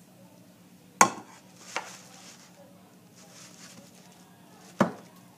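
Rubber spatula scraping thick cake batter out of a stainless steel mixing bowl into a cake pan, with sharp knocks of kitchenware on metal: a loud one about a second in, a lighter one just after, and another near the end.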